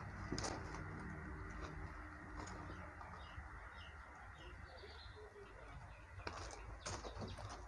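Faint small-bird chirps, a run of short repeated notes through the middle, over a steady low background hum, with a few soft clicks near the start and near the end.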